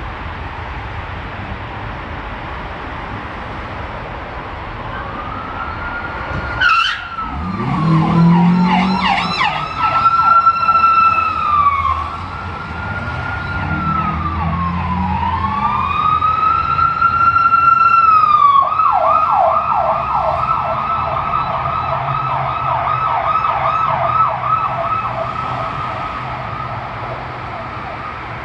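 Police car siren wailing in slow rising and falling sweeps, then switching about halfway through to a fast yelp of about three cycles a second, with vehicle engines rumbling underneath as the pursuit passes. A sudden loud burst cuts in about seven seconds in.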